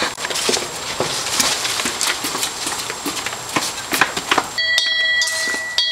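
Footsteps of two people hurrying along a concrete path, one pair in flip-flops, as an uneven run of slaps and knocks. A steady high-pitched tone comes in near the end.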